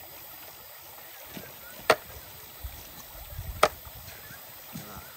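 Cleaver chopping meat on a plastic cutting board: two sharp chops about a second and a half apart, with a few softer knocks between, over the steady rush of a shallow river.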